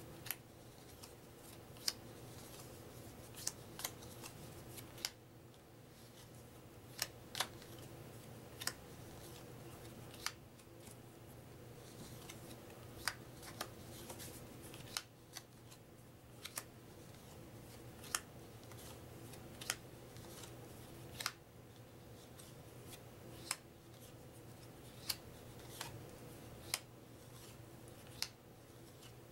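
Thin paper trivia cards being dealt one at a time onto a pile on a wooden tabletop: a short, sharp snap or tap every one to two seconds, about twenty in all, over a faint steady hum.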